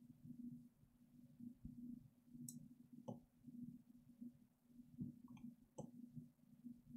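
Near silence: a faint low hum with a few soft computer-mouse clicks, about two and a half, three and six seconds in.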